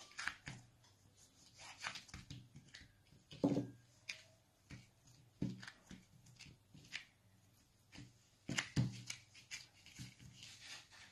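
Knife cutting soft dough into small pieces, its blade tapping the board at irregular moments, with hands setting the dough pieces down and pressing them.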